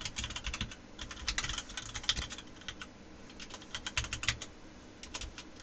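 Typing on a computer keyboard: quick, irregular runs of key clicks, with a short lull about three seconds in.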